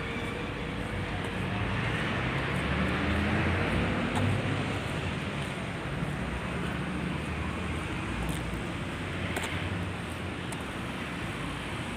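Road traffic passing on a street: a steady rumble of tyres and engines that swells a couple of times as vehicles go by.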